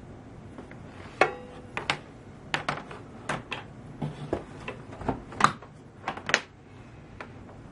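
Power cord plug being handled and pushed into its sockets: a series of sharp plastic and metal clicks and knocks, about a dozen, irregularly spaced. The first click, about a second in, has a short ringing tone.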